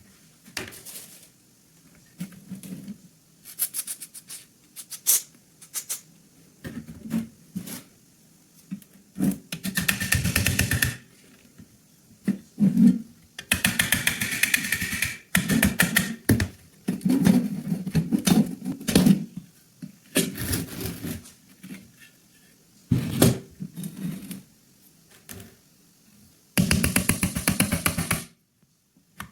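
Metal gun parts being handled and worked on: irregular bursts of clicks, rattles and scraping, some as fast runs of small strikes, with short quiet gaps between them.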